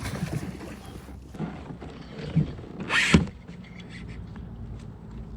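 Kayak and water sounds while a hooked bass is being fought from the boat. About three seconds in there is a short, sharp rush of noise.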